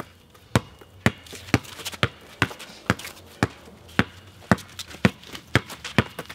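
A basketball being dribbled, bouncing at an even pace of about two bounces a second, with fainter taps in between.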